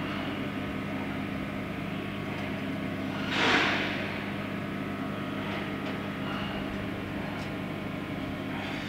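Steady hum with a few held low tones from a metal laser cutting machine running, with a loud rushing whoosh of about half a second, about three and a half seconds in.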